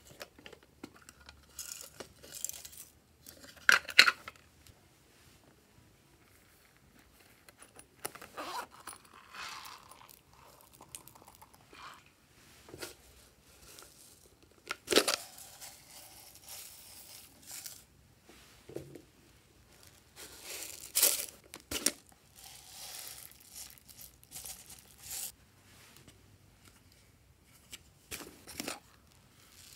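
Hands handling plastic toy containers: irregular crinkling and crackling of plastic with scattered sharp taps and clicks, the loudest around 4 s, 15 s and 21 s in.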